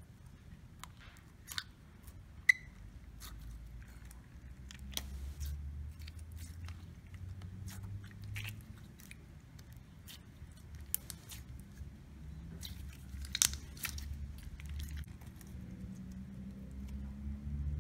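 Clear green putty being squeezed, pressed and stretched by hand, giving faint sticky clicks and crackles over a low rumble, with one sharper pop about two and a half seconds in.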